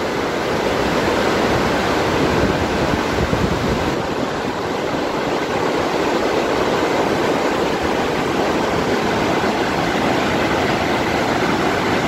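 Steady rush of fast-flowing mountain river water, an even, unbroken roar of turbulent current.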